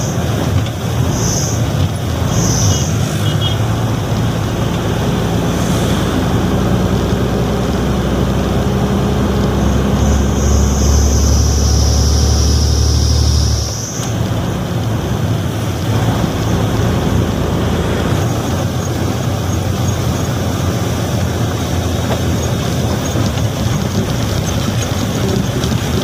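Heavy truck engine running under way, heard from inside the cab, with a steady low hum and a high whine that comes and goes. About fourteen seconds in, the engine sound drops suddenly and then runs on more quietly.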